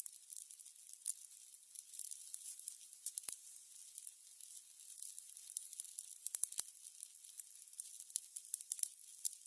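Burning candles crackling: a soft high hiss with quick irregular crackles, and a few sharper pops about three seconds in and again past the middle.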